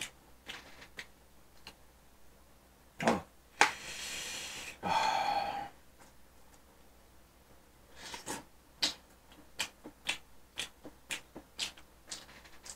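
Eating sounds: scattered short clicks and mouth noises while chewing a hamburg steak, with metal cutlery on a plate. About three seconds in comes a louder knock, then a rasping noise of about two seconds with a pitched edge toward its end, and from about eight seconds a steady run of small clicks.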